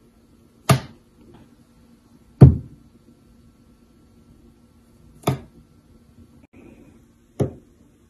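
Four sharp knocks on a hard countertop, about two seconds apart, the second one the loudest.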